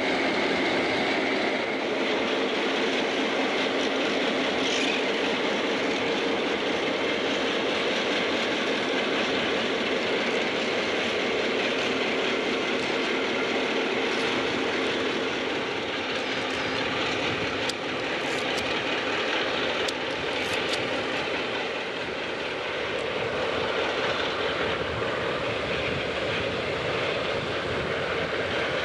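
Rio Grande EMD F9 diesel locomotives hauling a passenger train past, engines running with a steady drone over the rumble and clatter of wheels on rail.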